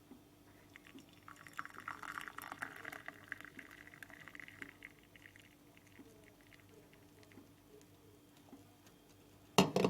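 Hot apple tea being poured from a teapot into a cup: a splashing trickle for about four seconds that tapers off. A sharp knock near the end.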